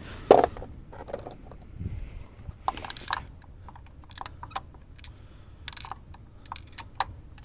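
Light, irregular clicks and taps of spark plugs and hand tools being handled, with the engine off and the old plugs out during a spark plug change.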